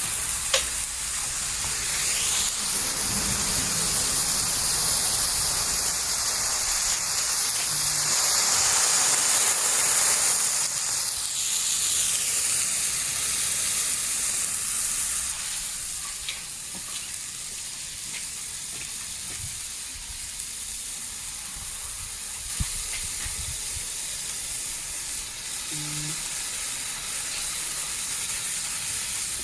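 Hand-held fireworks spraying sparks with a steady hiss that swells toward the middle and drops back to a quieter hiss about halfway through.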